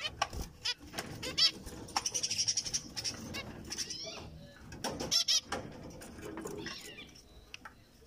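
Several zebra finches calling in short, quick, repeated calls, with a faster chattering run about two seconds in and scattered sharp clicks among them.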